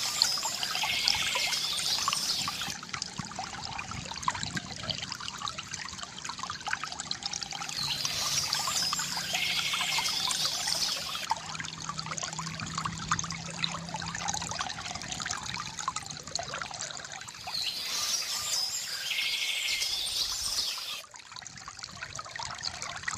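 Water trickling and pouring steadily from a bamboo fountain spout into its basin. A small bird sings over it three times, each burst a bright song with a buzzy trill, roughly every nine seconds.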